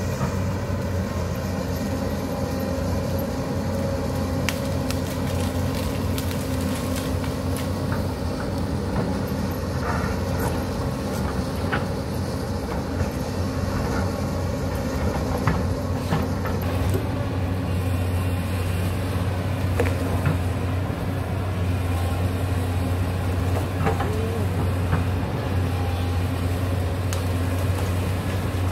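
Hyundai 220 crawler excavator's diesel engine running steadily as it digs a rocky slope, with scattered knocks and clatter from rocks and the bucket.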